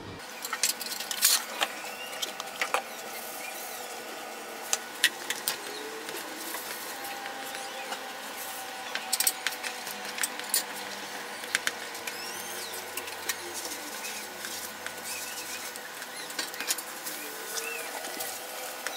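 Spatula stirring and scraping sticky glutinous rice through thick coconut-milk and sugar syrup in a non-stick wok: irregular clicks, knocks and wet scrapes as the spatula hits the pan, over a steady hiss from the simmering mixture.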